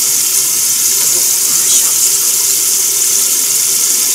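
Kitchen tap left running, a steady hiss of water falling into the stainless sink.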